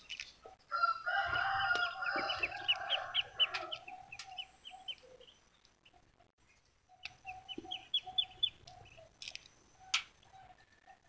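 Backyard chickens calling: a rooster crows for a couple of seconds, over a quick run of short high chirps, and a second run of rhythmic clucking notes follows about seven seconds in. A few small sharp clicks come from eggshell being picked off by hand.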